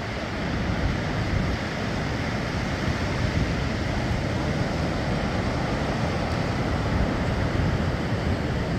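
Wind buffeting the microphone over the steady wash of surf on the shore.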